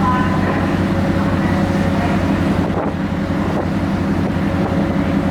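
A car ferry's engines running with a steady low drone while under way, with wind blowing on the microphone.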